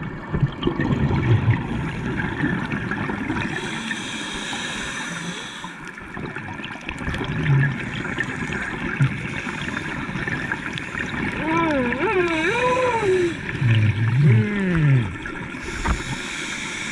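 Scuba diver breathing through a regulator underwater: a hissing draw on each inhale every few seconds, and a gurgling rumble of exhaled bubbles between them. In the second half a wavering tone slides up and down a few times.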